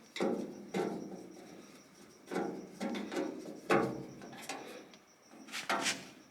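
Scattered knocks and clunks from work on a steel tool chest while screws are being taken out: about eight short, sharp hits with a brief ring-out, the loudest a little under four seconds in and a pair near the end.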